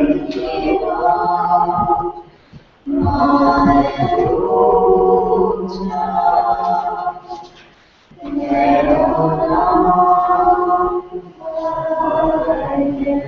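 A small group of voices singing a cappella, in sung phrases broken by short pauses for breath.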